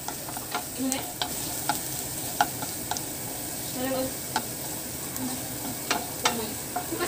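Minced garlic sizzling in hot oil in a nonstick frying pan, being browned, while a wooden spatula stirs it, tapping and scraping against the pan every half second to a second.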